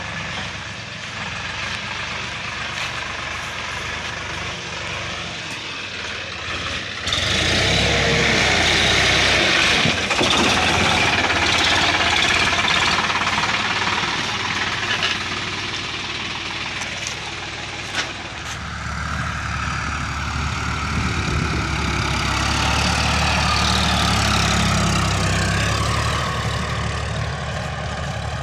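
Sonalika DI-50 RX tractor's diesel engine running steadily under load while pulling a rotary tiller through dry soil. It gets much louder about seven seconds in, eases off, then swells again a few seconds later.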